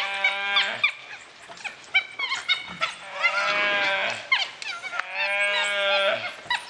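Gaur bawling: three long, drawn-out cries of about a second each, spaced a couple of seconds apart, with short squeaky calls in between.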